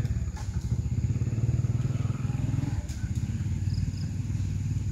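A small engine running steadily, heard as an even low hum.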